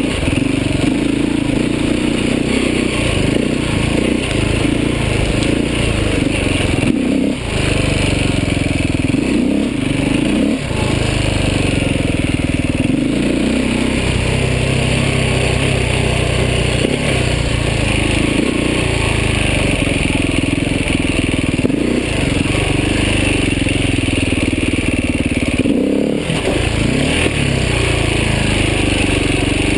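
Beta 450 RR enduro motorcycle's single-cylinder four-stroke engine running hard under load, its note rising and falling with the throttle. There are a few brief dips in the engine note as the throttle is shut off.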